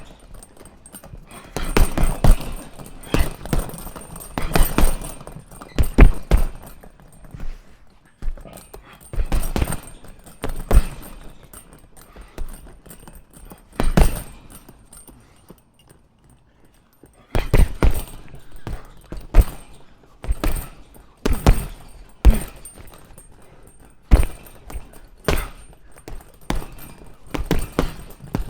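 Punches landing on a punching bag in irregular combinations: single thuds and quick flurries, with a pause of a couple of seconds past the middle.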